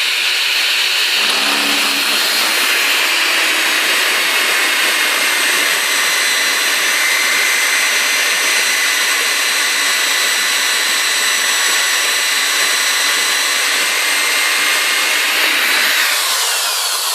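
Electric drill boring into metal with a thin bit, a continuous steady high whine; the bit is dull and burnt. The motor starts to spin down right at the end.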